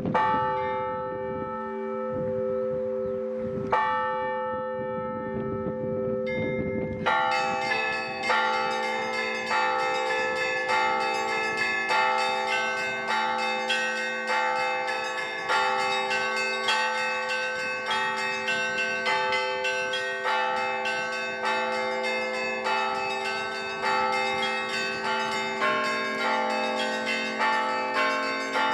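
Orthodox cathedral bells ringing. A large bell is struck slowly a few times, several seconds apart, its deep tone lingering. About seven seconds in, the smaller bells join in a fast, dense peal over it.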